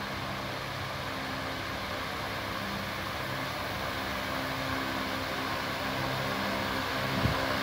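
Large misting fan of an outdoor cooling system running: a steady rush of air with a faint motor hum, growing slightly louder toward the end, with one short low bump near the end.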